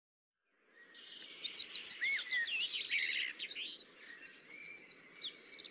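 Birds chirping, several calls overlapping in quick trills of high repeated notes. They begin about half a second in and are loudest in the first half.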